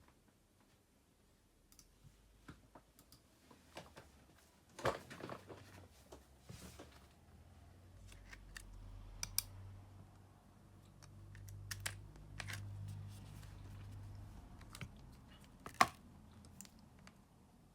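Scattered small clicks and taps of hand tools on a smartphone's parts during disassembly, with a low hum from about eight to fourteen seconds in.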